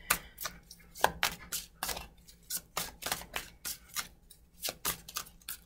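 A deck of tarot cards shuffled by hand: a run of sharp, irregular card slaps and clicks, about three or four a second.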